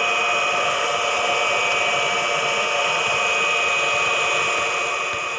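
Bench grinder running steadily without load, a constant whine with hiss, beginning to fade near the end.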